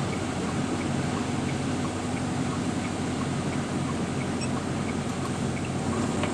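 Semi truck's diesel engine running with road noise, heard from inside the cab as a steady low hum under an even rush.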